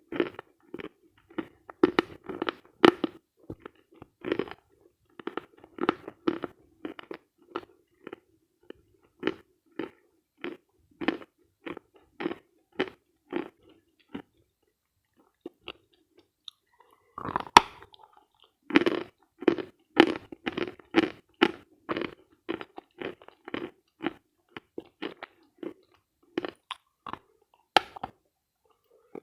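A person chewing dry, dense edible chalk close to the microphone, crisp crunches coming about twice a second. Past the middle the chewing stops for a couple of seconds, then a louder, sharp crunch of a fresh bite, and the chewing starts again.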